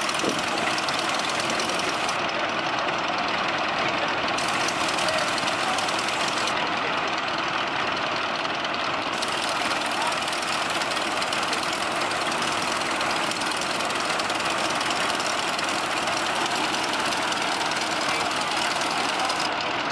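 Several vintage farm tractors idling together, a steady mixed engine rumble with no single engine standing out.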